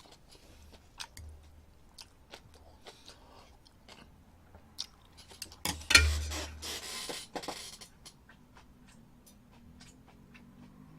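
Close-up chewing and eating eggs, with scattered small mouth and utensil clicks. About six seconds in there is a louder thump, followed by a short hiss.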